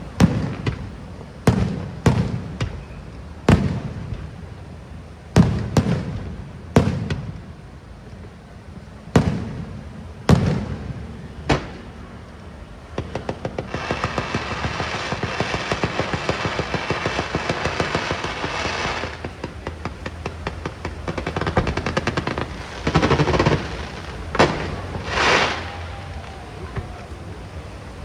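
Aerial fireworks shells bursting with sharp booms at irregular intervals, each followed by a short rumble. About halfway through comes a run of several seconds of rapid, dense crackling, and then a few more bursts and short crackles near the end.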